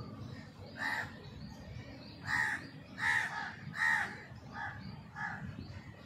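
A crow cawing six times in short, harsh calls, the middle three loudest.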